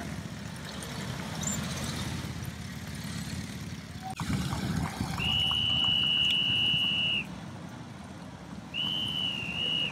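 Vintage Harley-Davidson motorcycles rumbling at low speed. About five seconds in, a loud, steady, high-pitched whistle blast lasting about two seconds; a second, shorter blast comes near the end.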